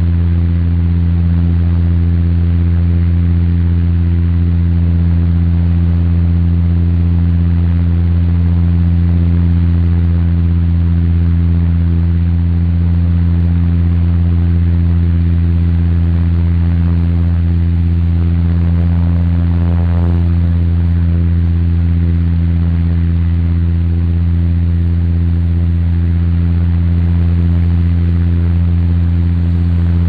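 Steady drone inside the cabin of a high-wing airliner in cruise: a strong low engine hum with several evenly spaced steady tones over an even rush of airflow noise, unchanging throughout.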